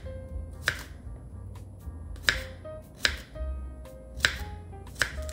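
Chef's knife chopping a cucumber on a wooden cutting board: five sharp knocks at uneven intervals, roughly one a second. Soft background music plays under it.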